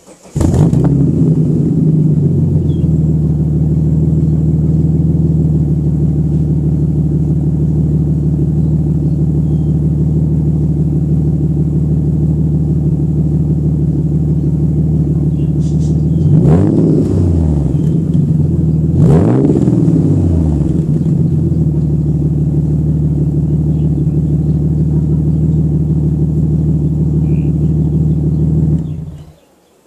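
Ford BA Falcon XR6 Turbo's turbocharged straight-six through an Xforce aftermarket exhaust, heard at the twin tailpipes: it starts up, idles steadily, is blipped twice in quick succession a little past halfway, each rev rising and falling back to idle, and is switched off near the end.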